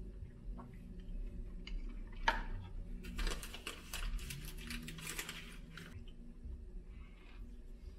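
Eating and food-handling sounds: a sharp click about two seconds in, then a few seconds of dense crackling rustle while a protein bar is handled over a bowl of yogurt, quieter near the end.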